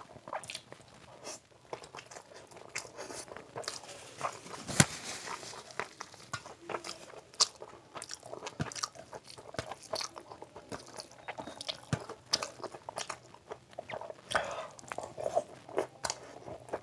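A person eating close to the microphone: chewing and crunching with wet mouth clicks and smacks, the sharpest click about five seconds in.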